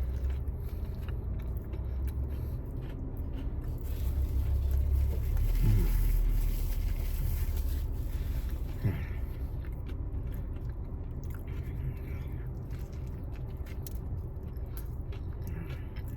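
A person biting into and chewing a fried chicken burger, with a steady low rumble underneath that swells for a few seconds in the middle.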